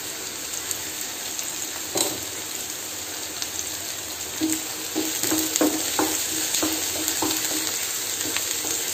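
Sliced onions, curry leaves and green chillies sizzling steadily in hot coconut oil in a pan. From about halfway, a wooden spatula stirs them, with a series of light knocks against the pan.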